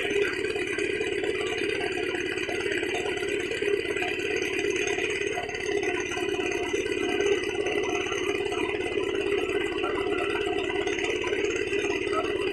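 Small boat engine running steadily, with a rattling clatter over its fast, even beat.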